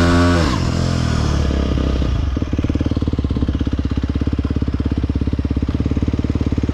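Aprilia RX 125 motorcycle's single-cylinder engine held at high revs, dropping back in the first second and settling to a steady, pulsing idle.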